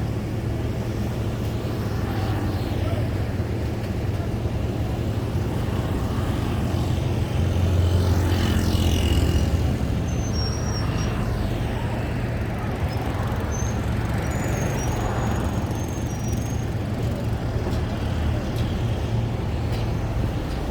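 Road traffic running steadily, with one vehicle passing close and louder about eight seconds in.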